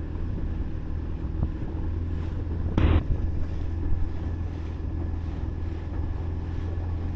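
Boat motor running steadily under way, with wind buffeting the microphone. About three seconds in, a brief loud rush of noise stands out over the engine.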